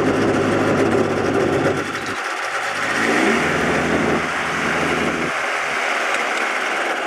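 Motorized hang glider (trike) engine running as the craft rolls along the runway, its revs changing: the pitch rises about three seconds in and the sound turns into a rattly buzz near the end.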